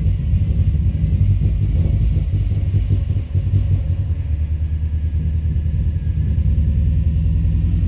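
2005 Subaru Forester XT's turbocharged 2.5-litre flat-four engine idling roughly, a low uneven rumble. The engine is running rich and stumbles when given gas.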